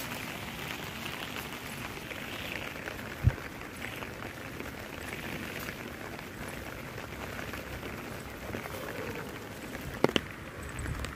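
Steady patter of light rain on wet ground and leaves, with a single dull bump about three seconds in and a sharp click near the end.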